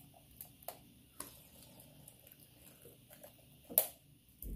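Quiet mouth sounds close to the microphone: a few scattered soft lip smacks and clicks, the sharpest just under four seconds in.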